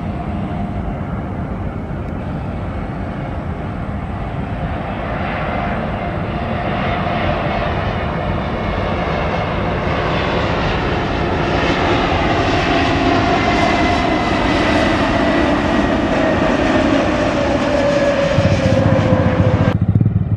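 Jet airliner's turbofan engines on landing approach: a steady rumble and whine that grows louder, with tones that slide slowly downward as the aircraft draws near. The sound breaks off abruptly near the end.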